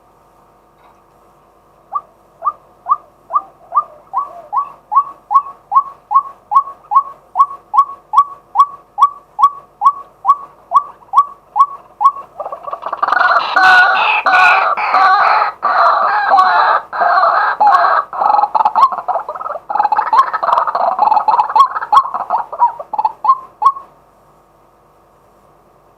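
Male white-breasted waterhen calling: a long run of short, evenly spaced notes, two or three a second, then about twelve seconds in it breaks into a loud, dense stretch of overlapping calls that lasts about eleven seconds and stops shortly before the end.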